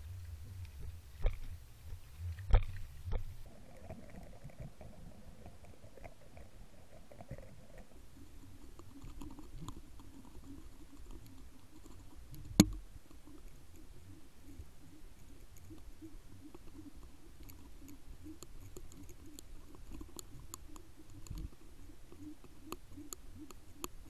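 Underwater sound picked up through a camera housing on a deep descent: scattered sharp clicks and knocks, one loud knock about halfway, a low rumble at first, then a faint, steady, fluttering low hum.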